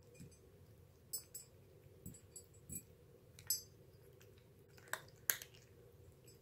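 A cat eating from a shallow ceramic dish: quiet, scattered clicks and clinks against the bowl, the sharpest two about five seconds in.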